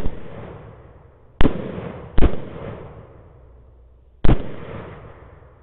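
Four .308 AR-10 rifle shots, each followed by a rolling echo that fades over about a second. One comes right at the start, two come close together about a second and a half and two seconds in, and one more comes about four seconds in.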